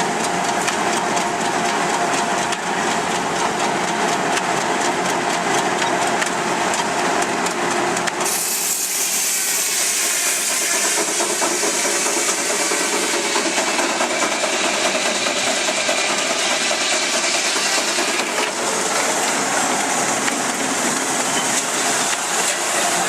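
A steam traction engine driving a sawmill, running steadily with a constant hiss. About 8 seconds in, a brighter, higher-pitched hissing noise is added on top and runs for about ten seconds before easing off.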